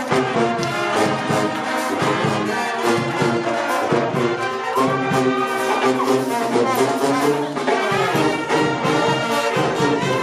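Brass band with sousaphones playing a tune with a steady beat.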